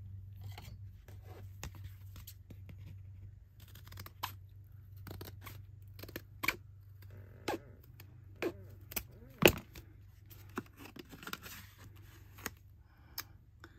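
Packaging of a stamp and die set being opened and handled: rustling and tearing with scattered sharp clicks and taps, the loudest a single snap about nine and a half seconds in, over a steady low hum.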